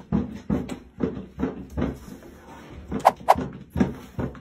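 A quick series of knocks and thumps, a few a second, with two sharp clicks a third of a second apart about three seconds in.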